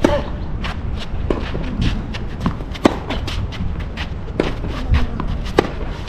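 Tennis serve struck right at the start, then a rally: sharp racket-on-ball hits and ball bounces a second or so apart, with the quick footsteps and shuffling of a player on a sand-dressed artificial grass court.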